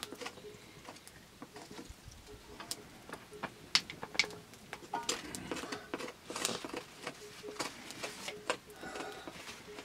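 Open wood fire crackling, with irregular small pops and a few sharper ones about four and six and a half seconds in.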